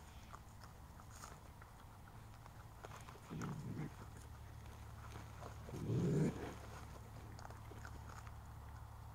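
Two short, low grunt-like sounds from an animal, about three and six seconds in, the second louder, with faint scattered clicks and crunches over a steady low hum.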